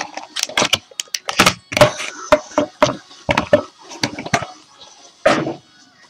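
A cardboard box of trading cards being handled and opened: irregular knocks, taps and rustling.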